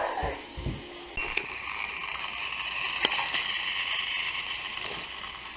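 Battery-powered toy train running along plastic track: a small electric motor whirring steadily from about a second in, with a couple of sharp clicks. A short cry is heard at the very start.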